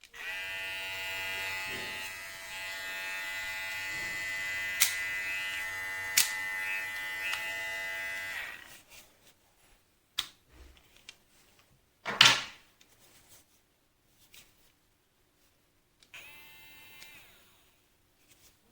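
Hatteker electric hair clipper running with a steady buzz for about eight seconds, with a couple of sharp clicks over it, then winding down. After some clicks and a loud knock, it runs again, briefly and more quietly, near the end.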